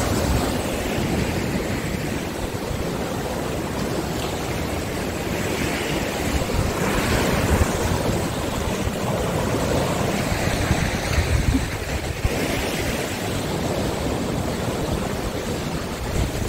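Sea waves surging and breaking against a rocky basalt shore, swelling and easing several times, with wind buffeting the microphone as a low rumble.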